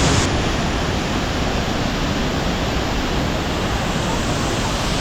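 Waterfall in heavy flow, a loud steady rush of falling water heard close up.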